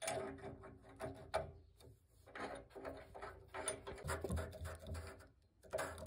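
Irregular clicks and knocks of a hand turning the plastic head of a thermostatic radiator valve to open it.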